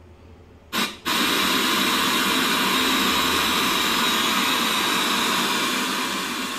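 A short burst about three-quarters of a second in, then a loud, steady static hiss from the Sony KDL-32EX403 TV's speakers as the set comes on, easing slightly near the end.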